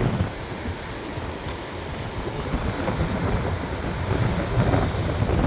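Strong wind buffeting the microphone, a steady low rumbling noise that swells again near the end.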